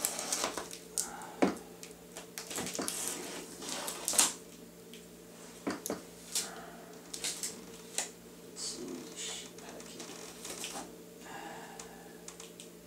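Cardboard box being opened and handled by hand: an irregular run of scrapes, rustles and clicks with a few sharper knocks, over a steady low hum.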